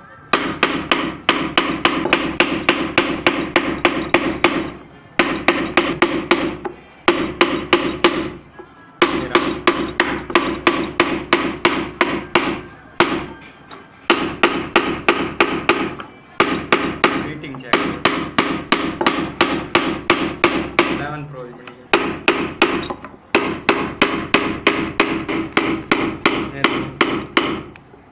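Rapid hammering on wood: even strikes several a second, in runs of a few seconds broken by short pauses, with a steady tone sounding under them.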